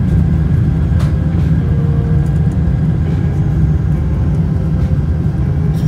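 Boeing 747-400 jetliner on the move, a loud, steady, deep rumble of engines and airframe, with a couple of faint clicks.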